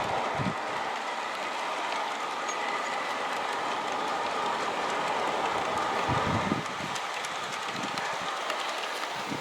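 G-scale model coal train rolling along the track: a steady rumble of wheels on rail with faint clicking over the rail joints, easing a little past the middle.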